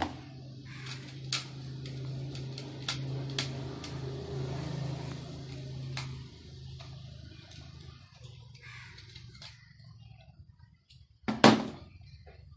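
A screwdriver clicking and tapping on the plastic terminal screws of an analog plug-in timer as wires are fastened, a few sharp ticks in the first six seconds, over a low steady hum. A single loud thump comes near the end.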